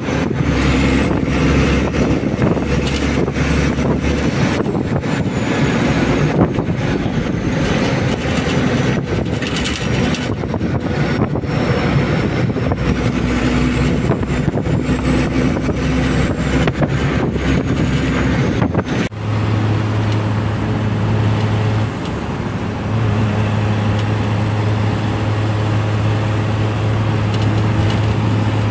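Inside a moving bus: engine and road noise running steadily. About two-thirds of the way through, the sound changes abruptly to a steadier, deeper engine hum, which dips briefly a few seconds later.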